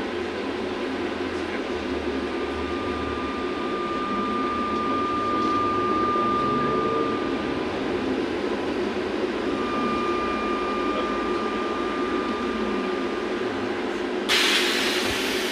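Interior noise of a VMZ-5298-20 trolleybus moving slowly: a steady rumble with a thin high electrical whine that comes and goes twice. About fourteen seconds in, a sudden loud hiss of compressed air starts as the trolleybus stands at a stop, typical of its pneumatic brakes or doors.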